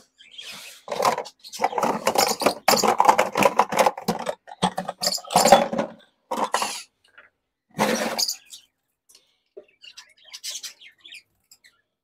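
Irregular clatter and rustle of small feeding bowls and a water bucket being handled and filled. It comes in bursts that stop after about eight seconds.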